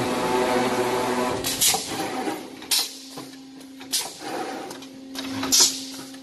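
Ladder-type brick force wire mesh welding machine running: a loud whirring for about the first second, then a steady hum broken by four sharp hisses of compressed air from its pneumatic welding head, about one every second and a half.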